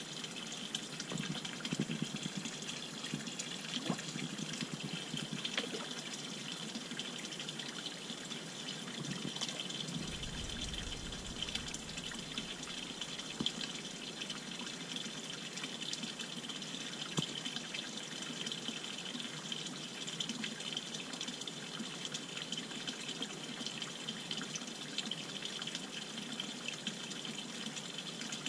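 A thin stream of water from a pipe pouring steadily into a small fish pond, a constant splashing trickle.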